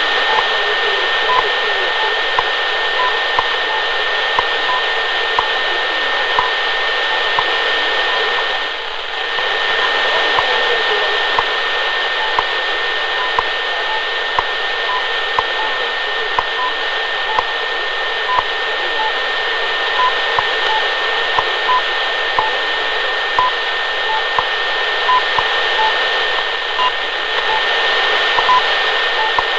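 Shortwave time-signal reception on 10 MHz through a pocket receiver: steady static hiss with a continuous high whistle, and short pips about once a second at two slightly different pitches. These are WWV's second ticks mixed with a higher beep that the listener believes is BPM China, plus a third unidentified time station. The signal dips briefly about nine seconds in.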